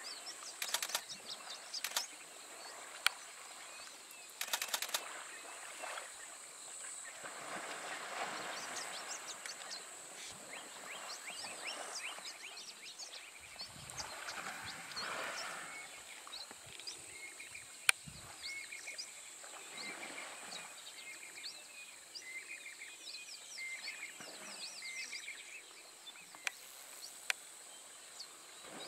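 Bush ambience at a waterhole: many short bird chirps over a steady high insect buzz, with a few swells of water sloshing as African elephant bulls wade and splash. A few sharp clicks cut through, the loudest about two-thirds of the way in.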